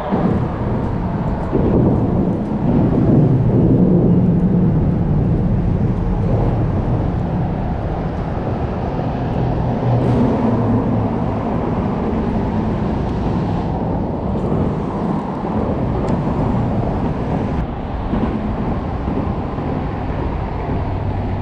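Road traffic crossing the concrete highway bridge overhead: a steady low rumble that swells a few seconds in as vehicles pass.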